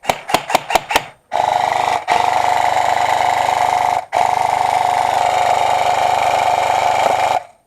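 Electric airsoft gun firing: a quick string of about five single shots in the first second, then long full-auto bursts, a fast rattle over a steady gearbox whine. The bursts are broken by two short pauses about two and four seconds in, and the firing stops just before the end.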